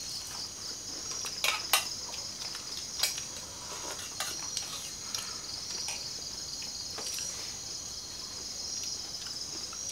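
Steady, high-pitched chorus of night insects with a pulsing rhythm. A few sharp clicks of utensils on plates from people eating come through it, the loudest about one and a half seconds in and again at three seconds.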